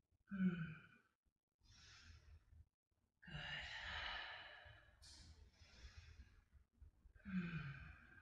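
A woman breathing audibly while holding a yoga twist: slow inhales and long, sighing exhales, with a voiced sigh about half a second in and another near the end.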